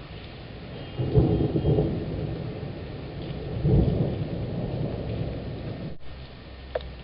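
Thunder rolling in two loud rumbles, one about a second in and another near four seconds, each dying away slowly, over a steady hiss of rain.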